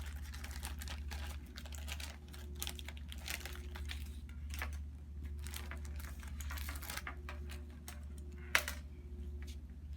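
Irregular clicking and rustling as hands handle an IV piggyback set, with one sharper click near the end, over a steady low hum.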